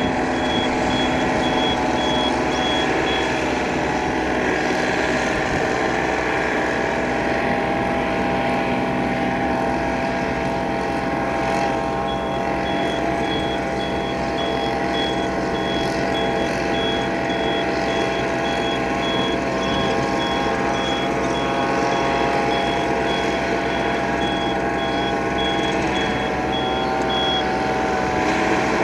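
Small farm tractor's engine running steadily under load while its rear rotary tiller puddles a flooded rice paddy. A high electronic beeper sounds in a steady series of beeps for the first few seconds, then again from about twelve seconds in until near the end.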